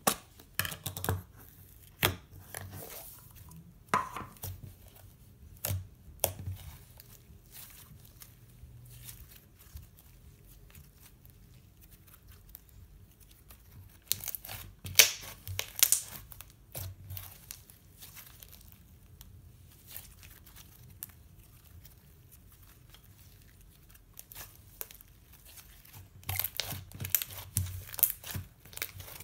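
Hands squishing, folding and poking slime, making sticky crackles and small pops in scattered bursts. The bursts are busiest in the first few seconds, around the middle and near the end, with quieter handling in between.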